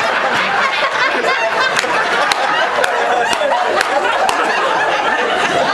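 Crowd laughing and chattering, with sharp claps at an even beat, about two a second, through the middle.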